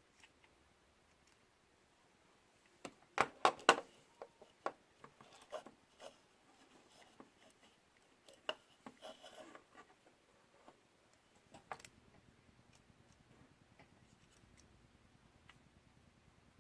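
Small clicks, taps and rubbing of hands and small tools working on a drone camera gimbal and its ribbon cable, with a cluster of sharper clicks about three seconds in and scattered lighter ones after. A faint low hum comes in near the end.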